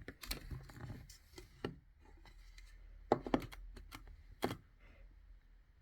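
Irregular sharp clicks and knocks of objects being handled, with a cluster a little after three seconds and a louder knock at about four and a half seconds, over a faint low hum.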